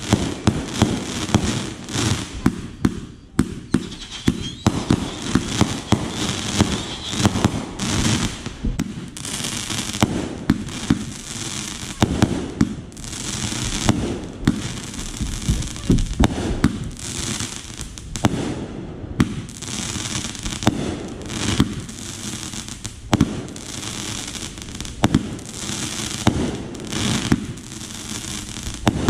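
Consumer firework cakes firing shot after shot: rapid launch thumps, each followed by bursts and crackling stars, nearly without a break.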